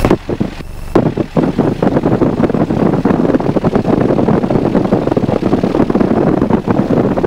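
Wind and propeller blast buffeting the microphone in rapid, irregular gusts over a Van's RV-7A's running engine and propeller, starting in earnest about a second in.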